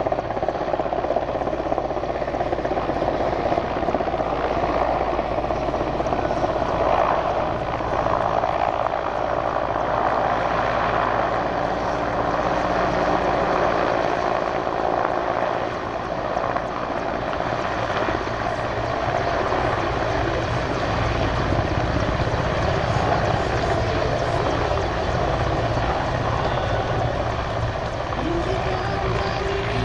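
Helicopter in flight: steady rotor and turbine noise that neither starts nor stops.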